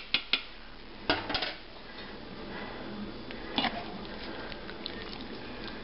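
A measuring cup clinking and knocking against a stainless steel pan while scooping wet dressing: a few sharp knocks in the first second and a half, and another about three and a half seconds in.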